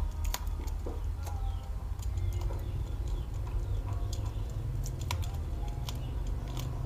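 A few small clicks and taps as fingers handle an opened Poco X3 NFC smartphone and pull at its battery adhesive pull-tabs, over a steady low hum.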